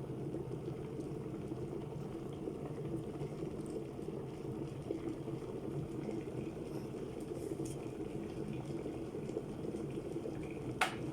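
Redmond electric kettle's water heating steadily towards the boil. Near the end there is one sharp click as the kettle's switch lever flips up and it shuts off, the sign that the water has boiled.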